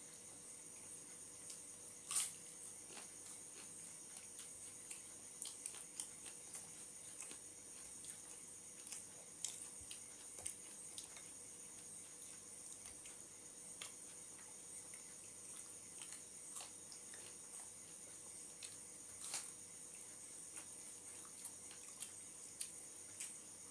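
Two people eating with their hands and chewing: irregular soft wet clicks and smacks of mouths and fingers in curry and rice, the sharpest about two seconds in, over a steady high hiss.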